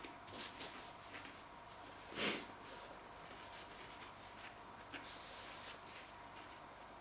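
A man's short breathy puffs and sniffs, the loudest about two seconds in, as he breathes through the burn of Carolina Reaper chilli in his mouth.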